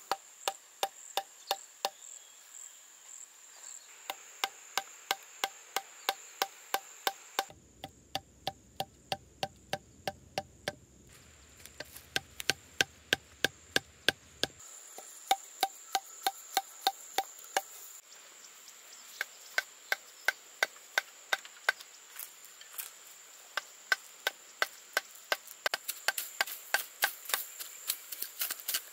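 Rapid, even chopping strikes of a hand tool on bamboo, about three to four a second, in several runs joined by abrupt cuts. A steady high insect buzz runs behind most of them.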